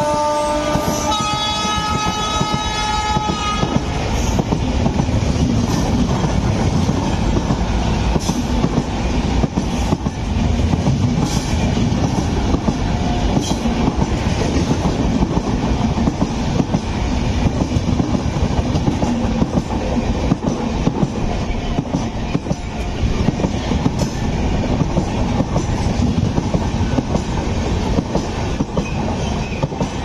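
WAP7 electric locomotive honking as it passes, the horn cutting off about three and a half seconds in. Then the coaches of the express rush past with a steady heavy rumble and scattered sharp wheel clicks.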